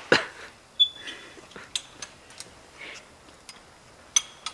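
Car's roadside jack being cranked by its handle: irregular metallic clicks and knocks, about half a dozen, one with a short ring about a second in.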